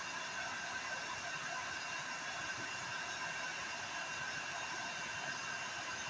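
Hair dryer running steadily, an even hiss of blown air with a faint whine.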